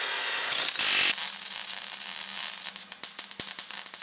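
Abrasive cut-off wheel grinding through a metal tube, a loud hissing rush for about the first second, then a steady mechanical hum with a run of rapid clicks near the end.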